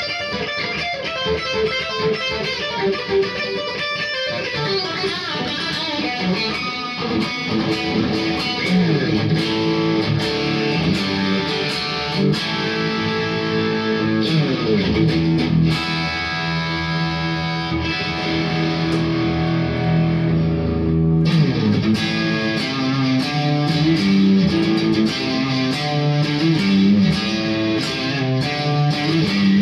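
Kogai Tele 72 custom Telecaster-style electric guitar played as an improvised lead through a Randall RG50TC valve amp, with sustained notes, string bends and slides. About two-thirds of the way through the tone turns noticeably brighter.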